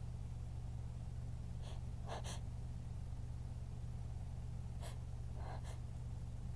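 Short, sharp inhalations of a woman in a sneezing fit: a quick cluster of three about two seconds in, and another two or three about five seconds in. A steady low hum runs underneath.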